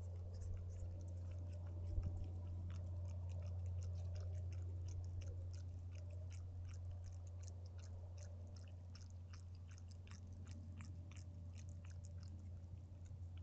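An animal chewing and crunching on raw vegetables close to the microphone: a rapid, irregular run of small wet crunches and clicks, with a single thump about two seconds in. A steady low hum runs underneath.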